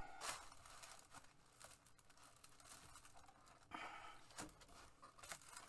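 Faint paper rustling and crinkling as a 12x12 scrapbooking paper pad is handled, in a few short bursts about a second in, near four seconds and near the end.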